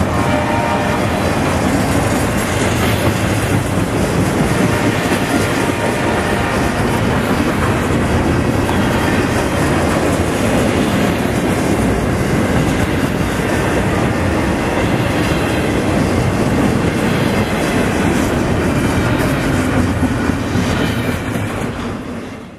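Double-stack intermodal freight train rolling past close by, its steel wheels clattering on the rails, with the tail of the last locomotive going by at the start. The steady, loud rumble fades out near the end.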